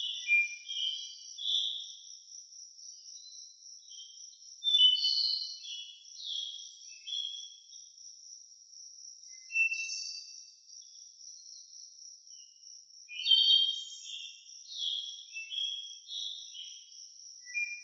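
Songbirds singing in bursts of short, quick notes over a steady, high, pulsing insect trill like crickets chirring.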